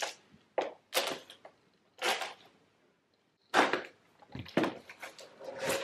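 Cardboard shipping box being cut open and handled: a handful of separate short scrapes and rustles of cardboard and packing tape, with quiet gaps between them.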